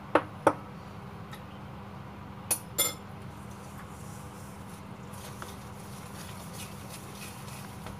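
Wire whisk clinking against a stainless steel mixing bowl while stirring chocolate cake mix with eggs and oil: four sharp clinks in the first three seconds, then only faint ticks. A steady low hum runs underneath.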